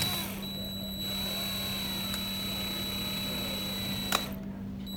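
DeWalt DCD771 20V cordless drill/driver running steadily for about four seconds, turning a bundle of wire strands held taut in pliers to form a wire helix. It stops with a sharp click about four seconds in.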